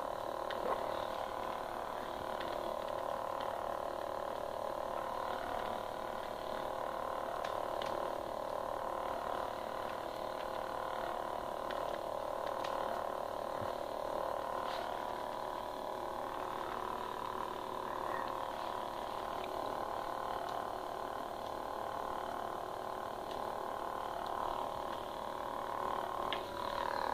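Lightsaber's SuperONE 1.0 sound board playing its steady idle hum through the hilt speaker, with a few faint clicks.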